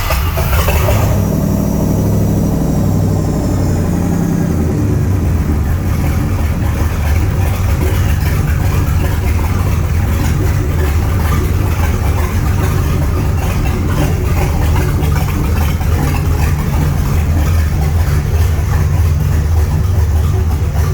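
A 5.7 GSi V8 engine that is hard to start. It catches about a second in after cranking, runs for a few seconds, then settles into a steady idle.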